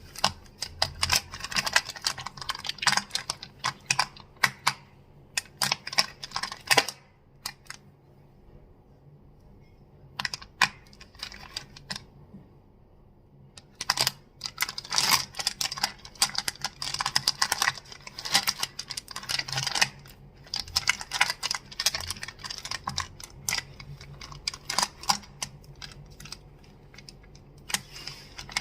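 Crystals tapped and clacked, making rapid flurries of sharp clicks, with two short pauses in the first half.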